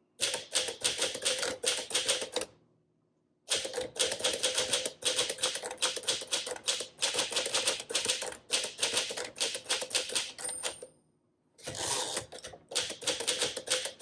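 1953 Smith Corona Super manual typewriter being typed on at a brisk pace: rapid clacking of the typebars striking the platen. The typing comes in three runs, broken by pauses of about a second roughly two and a half seconds in and again near eleven seconds.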